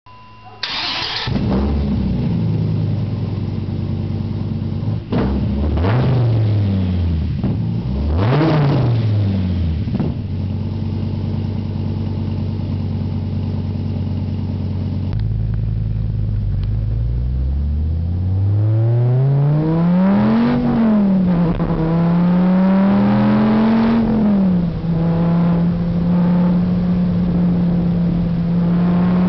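2008 Dodge Viper SRT-10's V10, breathing through full Belanger ceramic-coated headers, cats and tips, cranks and fires on a cold start. It settles into a steady fast idle and is blipped twice. Then, heard from inside the cabin, it pulls up through the revs twice on light acceleration runs and settles to a steady cruise near the end.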